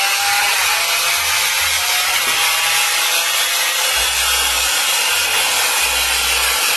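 Lamborghini Aventador's V12 running hard on a chassis dynamometer: a steady, loud rushing noise with no clear rise or fall in pitch, and a low rumble that swells now and then.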